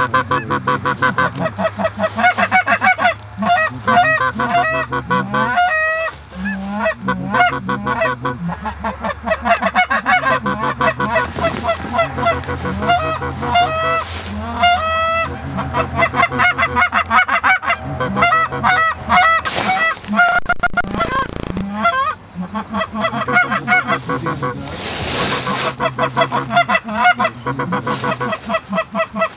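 Geese honking: many short honks that overlap and repeat quickly, as a flock comes in. There is a brief burst of noise about two-thirds of the way through.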